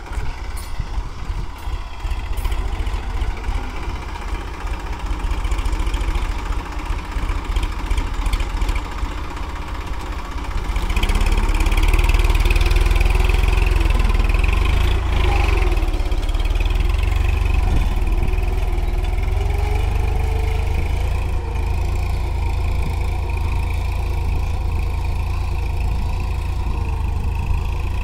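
Massey Ferguson 9000 tractor's naturally aspirated diesel engine, with an inline injection pump and no turbo, running under load while it pulls a plough through hard soil. It gets louder about eleven seconds in, and its pitch rises and dips as the load changes.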